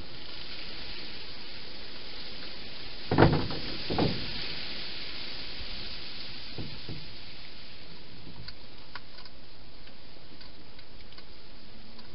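Steady hiss with two dull knocks about three seconds in, a second apart, from a hedgehog feeding inside a clear plastic feeding box and bumping against it; a few faint light clicks follow later.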